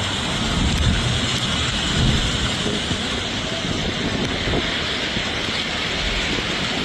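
Heavy thunderstorm rain pouring down, a steady loud hiss with low rumbles swelling about one and two seconds in.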